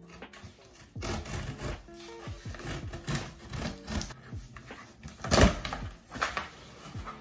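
Scissors dragged through the packing tape on a cardboard box, making scraping, rustling strokes, then a loud rip of tape and cardboard as the flaps are pulled open about five seconds in.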